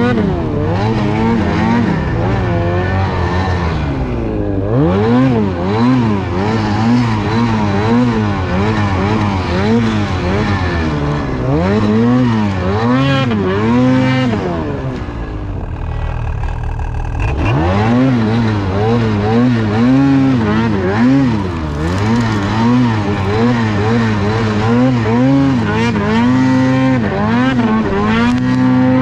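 Ski-Doo Summit snowmobile's two-stroke E-TEC engine through an aftermarket GGB exhaust, loud, revving up and down over and over as it works through deep snow. About fifteen seconds in the revs fall to a low note for a couple of seconds, then climb again, and near the end it holds a steadier high rev.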